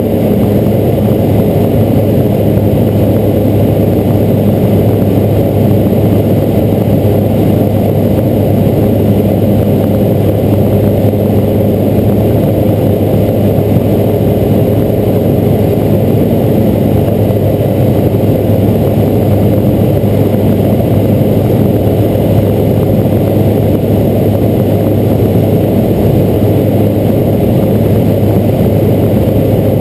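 Robin DR400 light aircraft's piston engine and propeller running steadily in flight, heard inside the cockpit as a loud, even, low-pitched drone.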